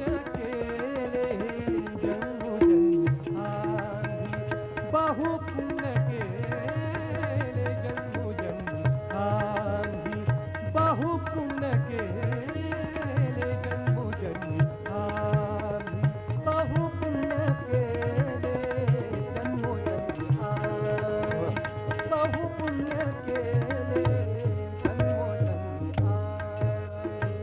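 Instrumental interlude of a Marathi devotional bhajan: hand drums keep a steady beat under a winding melody and a held drone note.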